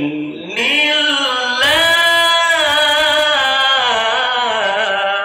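A man's voice reciting the Quran in the melodic tajweed style, drawing out one long sung note. The note rises about half a second in, wavers, and sinks slowly toward the end.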